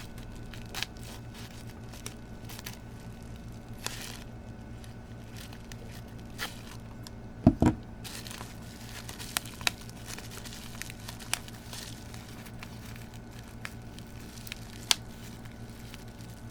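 Packaging being torn and crinkled by hand while unwrapping a padlock, with scattered sharp clicks and a heavier double knock about seven and a half seconds in. A steady low hum sits underneath.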